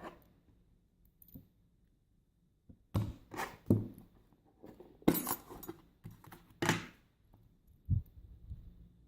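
Metal clicks and clunks from handling a brass rim cylinder lock and its tools: several sharp knocks in small clusters, the loudest about five seconds in.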